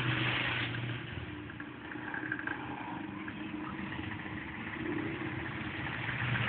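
Piaggio Zip scooter engine with Polini Evolution tuning, running steadily at low revs.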